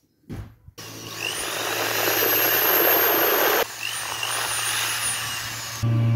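Cordless drill running steadily as it drills into a wooden block, after a short knock at the start. The motor's high whine drops away about halfway through, and just before the end the sound turns louder and deeper.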